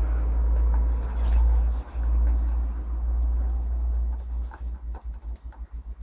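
Steady low rumble on the microphone that breaks into uneven thumps about four and a half seconds in, with faint budgerigar chirps and small clicks from the birds at the plastic nest box.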